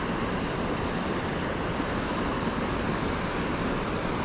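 Steady rush of a small creek tumbling over rocks into a pool.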